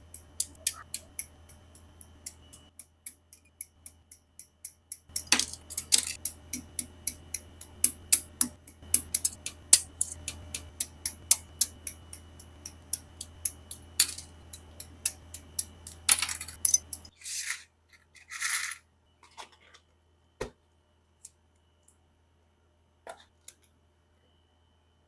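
Small hard plastic model kit parts clicking and tapping together during assembly: a long run of sharp clicks, two or three a second, then two short rustles and a few scattered clicks near the end.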